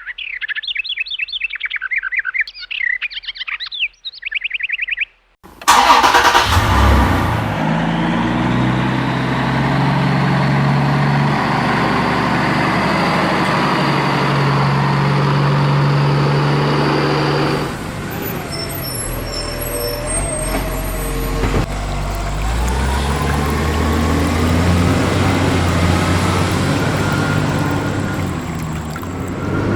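Rapid bird-like chirps for the first few seconds, then a vehicle engine starts suddenly and runs steadily, its pitch shifting and rising as it revs.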